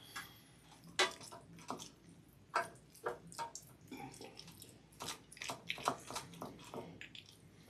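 Basting brush working a wet ancho and honey marinade over raw chicken skin and flesh: irregular wet clicks and smacks.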